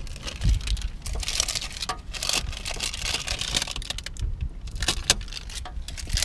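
Irregular small clicks, taps and rattles of hands handling electrical wire and fittings, with rustling stretches in between.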